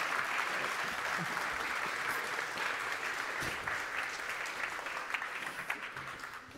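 Audience applauding, a dense and steady clapping that begins to thin out and fade near the end.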